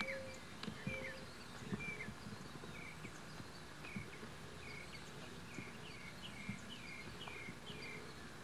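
Birdsong: a bird repeating a short, falling chirp over and over, coming faster in the middle stretch, over a steady background hiss.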